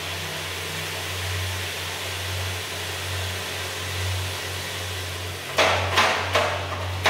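A charge of coffee beans pouring from the hopper into a Probat drum roaster's hot, turning drum: a steady rushing hiss over the machine's low hum. Three or four sharp knocks come near the end.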